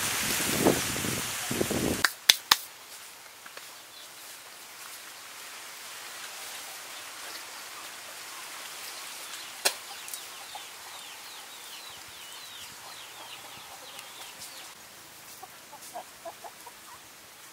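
Outdoor farmyard background: chickens clucking and a small bird twittering in quick high chirps. A few sharp knocks come about two seconds in.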